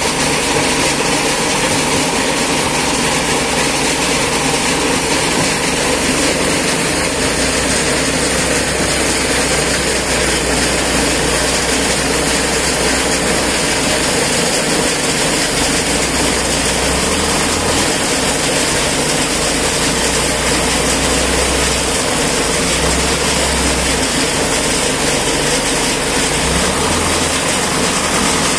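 Wheel loader's diesel engine running steadily under load as it drives with a bucket of crushed stone and raises the bucket, the engine note shifting a few times in the second half.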